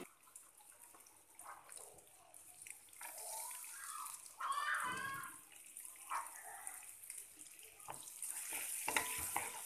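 Minced garlic sizzling gently in melted butter in a wok, a steady soft hiss, with a few scrapes and taps of a wooden spatula near the end.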